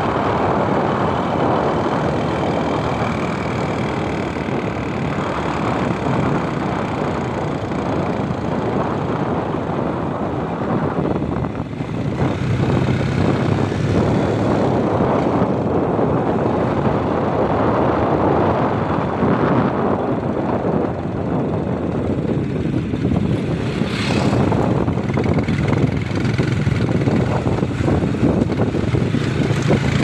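Motorcycle engine running steadily under way, with an even rushing noise over it.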